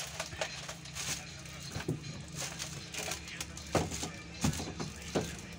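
Irregular short clicks and brief squeaks of hands and tools working on a vehicle's wet sliding side window while window-tint film is fitted, over a steady low hum.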